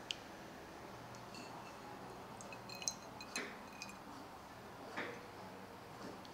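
A few light clinks and small knocks of a drinking glass and a ceramic bowl as water is poured over coffee granules, with faint bright ringing between them.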